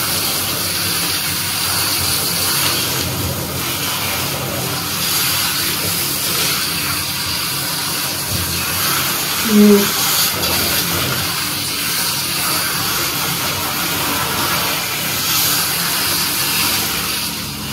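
Handheld shower head spraying water onto hair over a bathtub: a steady hiss of running water as the hair is rinsed. One brief vocal sound about ten seconds in.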